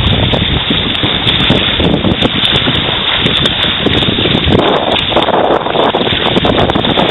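Wind buffeting the microphone over water rushing and splashing past the hull of a Hobie Mirage Adventure Island trimaran under sail. The noise is loud and constant, with no engine.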